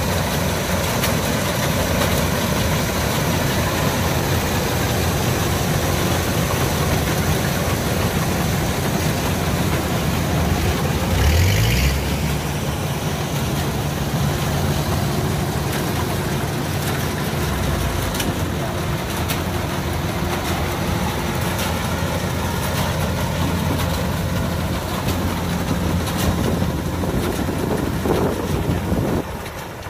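Kubota DC105X combine harvester's diesel engine running steadily, with a brief rise in engine pitch about eleven seconds in. The sound drops in level just before the end.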